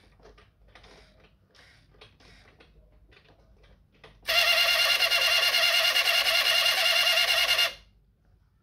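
A customised Moltó toy military truck gives out a loud, steady buzz with several pitches and a fast flutter, starting about four seconds in and cutting off abruptly about three and a half seconds later. Faint handling clicks come before it.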